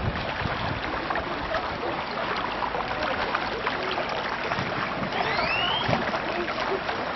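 Outdoor swimming-pool ambience: a steady wash of water noise with scattered small splashes, and a short rising whistle about five seconds in.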